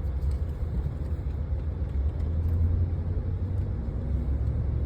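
Steady low road and engine rumble heard from inside a moving vehicle's cabin.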